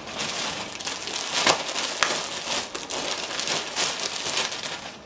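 Plastic clothing packaging bag crinkling and rustling as it is handled and pulled open, in irregular bursts of crackling noise.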